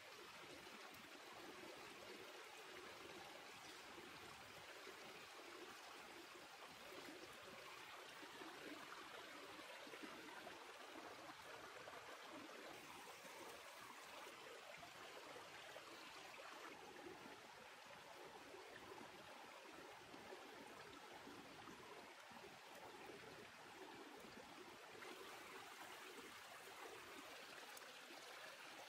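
Faint, steady sound of a stream running.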